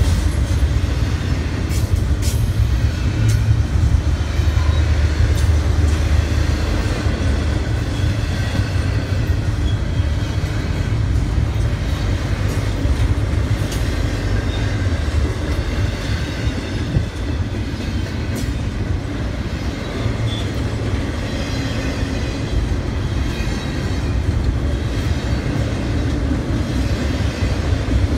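Freight train rolling past at close range: a steady heavy rumble of the cars with wheels clicking over rail joints.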